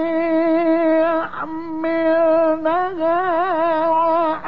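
A male Quran reciter chanting in the melodic mujawwad style, holding long high notes on a stretched vowel. There is a brief break a little after a second in, and then he resumes with a wavering, ornamented run before settling on a held note again.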